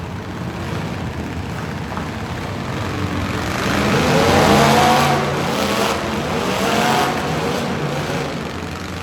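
Truck engine revving under load, its pitch climbing and dropping twice, loudest about halfway through.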